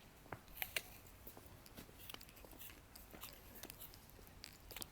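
A person chewing close to the microphone, with faint irregular crunches and clicks, typical of biting into an apple.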